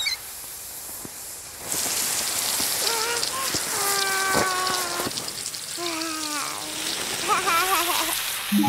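Shower spray of water running, getting louder about two seconds in after the tap is turned on. A baby's voice makes several short sounds over the spray, including one longer, slightly falling note.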